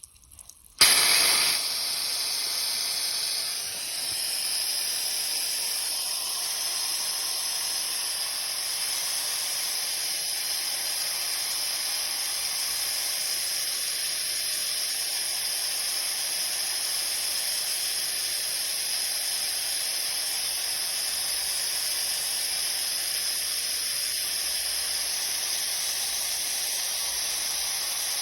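Air compressor tank's drain valve opened: compressed air blasts out in a steady, loud hiss, starting suddenly about a second in. It carries out condensate water left to build up over a month without draining.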